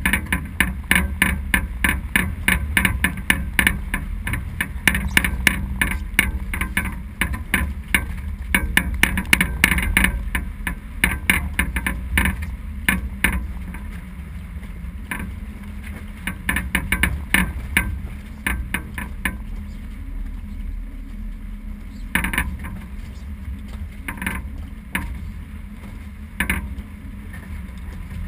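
Sailboat under way: a steady low wind rumble on the microphone with rapid clicking and knocking from deck gear, dense in the first half and sparser later, with a few louder knocks near the end.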